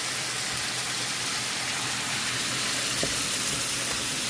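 Ground beef and onions frying in a pan, a steady sizzle, with a faint tick or two about three seconds in.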